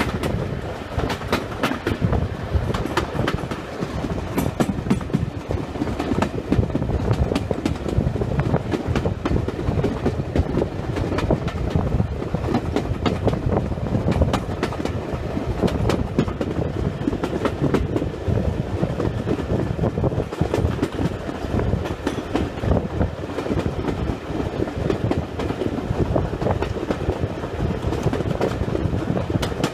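Steam-hauled train behind GWR Small Prairie 2-6-2 tank engine no. 5542 running at speed, heard from an open carriage window: a steady running noise with the wheels clattering over the rails.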